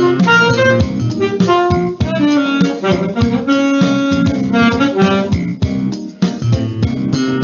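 Saxophone playing a jazz melody over a backing track with a steady beat.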